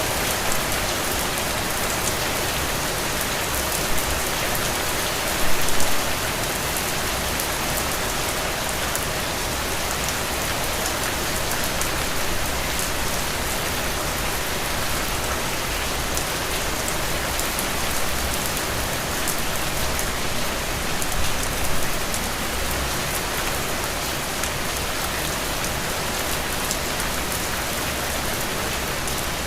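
Steady rain falling, a dense hiss with a fine patter of drops, with two brief louder moments, about six seconds in and about two-thirds of the way through.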